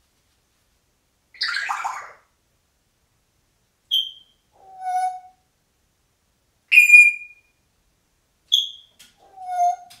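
African grey parrot mimicking electronic beeps, the beeps of a home security system. A rough falling call comes first, then a run of short, sharp high beeps alternating with lower whistled notes, the loudest a little past halfway.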